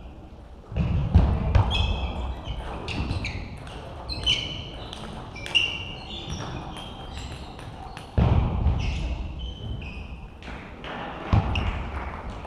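Table tennis balls clicking off bats and tables, many short sharp pings in quick runs, with a few dull thumps from players' feet on the hall floor.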